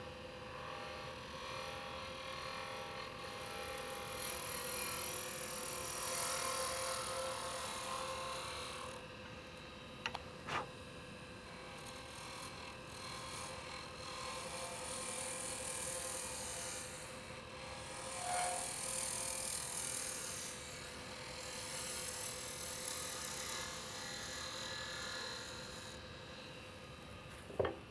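Lathe spinning a pen blank on its mandrel with a steady hum, while a turning tool takes light finishing cuts: a hissing scrape that swells and fades with each pass. Two small clicks about ten seconds in.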